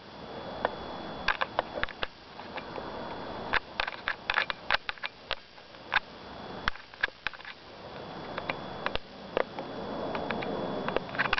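Camera handling noise: irregular sharp clicks and ticks over a rustling hiss that swells and fades, with a faint steady high whine.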